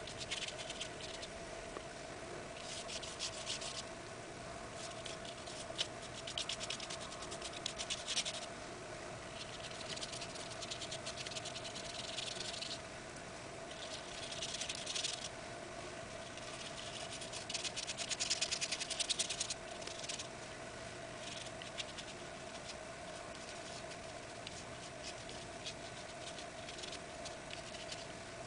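Small paintbrush dabbing and stroking paint onto a paper journal page: a dry, scratchy rustle that comes in bursts of a second or two, with small taps between. A faint steady hum sits underneath.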